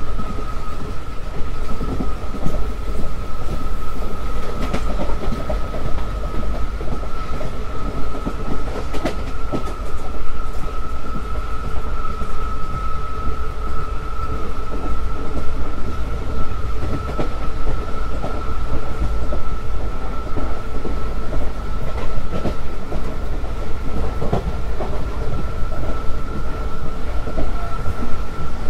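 WCAM-1 electric locomotive's traction motors whining steadily under power as the train gathers speed, the pitch creeping slightly higher. Beneath it are the rumble and irregular clatter of wheels on the rails.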